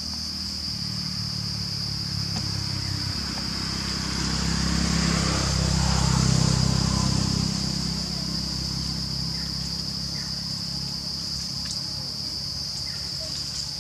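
Steady high-pitched drone of an insect chorus. A low rumble swells and fades in the middle.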